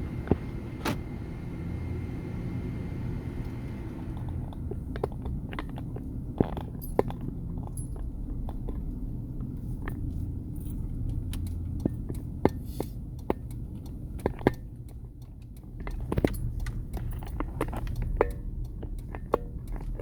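Vehicle driving, heard from inside the cab: a steady low rumble from engine and road, with frequent sharp clicks, knocks and rattles. The rumble grows louder about three-quarters of the way through.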